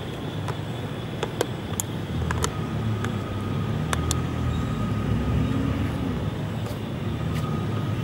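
Steady low engine rumble of a motor vehicle, swelling a little in the middle. Over it come scattered sharp clicks and crackles of a plastic bottle being bitten and gripped by a macaque.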